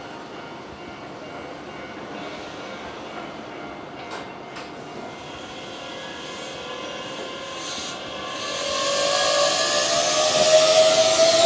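Keihan 9000-series electric train starting to pull away. A low steady hum with two short sharp sounds about four seconds in, then about eight seconds in the motors start up with a rising whine and growing running noise as the train accelerates.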